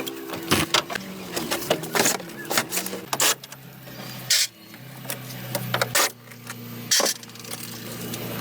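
Irregular sharp clicks and knocks of hand tools at work on a car, about eight strikes spaced unevenly, over a faint steady low hum.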